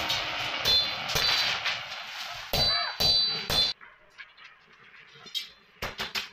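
Hammer striking steel rods on an anvil block: about five sharp metallic clangs, several with a high ringing tone. About four seconds in it goes quieter, with only faint clinks, then two quick metal knocks near the end.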